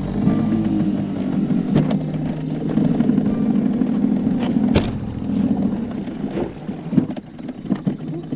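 Small boat motor running steadily, driving the dinghy along, with a few sharp knocks.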